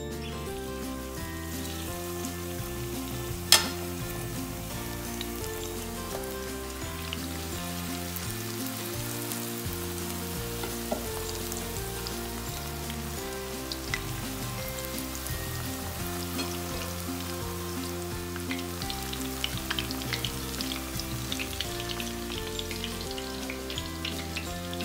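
Battered sweet potato and vegetable strips deep-frying in oil in a cast-iron skillet: a steady sizzle with scattered crackles, busier in the last few seconds. There is one sharp clack about three and a half seconds in.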